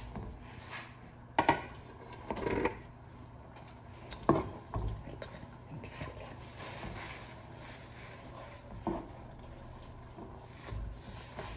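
Kitchenware being handled: several sharp knocks and clinks of a ceramic plate and an aluminium stockpot, the loudest about a second and a half and about four seconds in, over a steady low hum.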